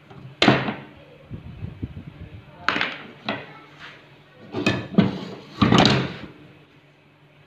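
Pine boards and a metal speed square being handled and set down on a wooden workbench: a series of sharp wooden knocks and clatters, about six, with a scraping rattle between the first two.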